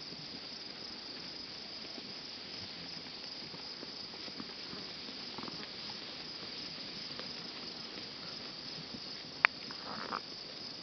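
Steady high-pitched chorus of field insects such as crickets, with sheep cropping grass close by in faint, irregular crackles. A single sharp click about nine and a half seconds in, and a short louder sound just after.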